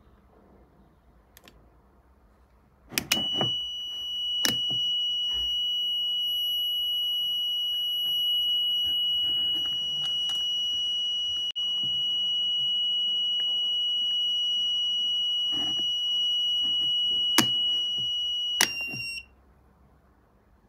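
Power inverter sounding its protection alarm: one continuous high-pitched beep that starts about three seconds in and cuts off sharply about sixteen seconds later, with a brief break about halfway. The inverter's output is shut off while it beeps. A few sharp switch clicks fall along the way, one just as the beep stops.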